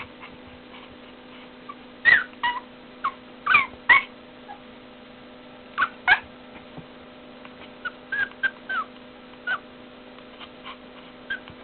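A young pet's short, high cries, about a dozen of them in little runs with pauses between, each one bending in pitch.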